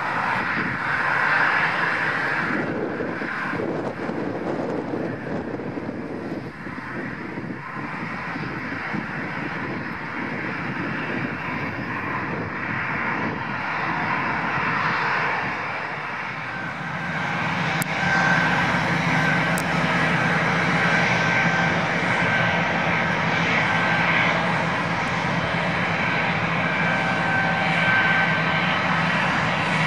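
Gulfstream G550 business jet's twin Rolls-Royce BR710 turbofans running at taxi power: a steady jet whine and rumble. It grows louder a little past halfway, with a steady high whistling tone.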